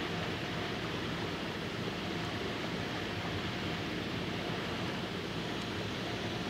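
Steady seaside ambience: an even rushing noise with a faint low hum, no horn or other distinct event.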